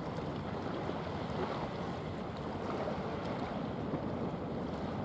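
Steady, even outdoor rush of wind and water, weighted low, with no distinct events standing out.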